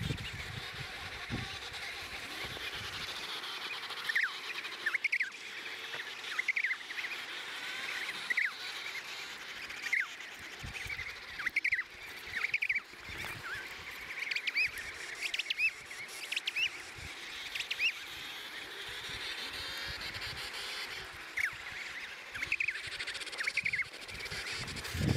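Emperor penguin colony calling: many short, high-pitched calls that sweep in pitch, coming in scattered clusters over a steady din of more distant calls.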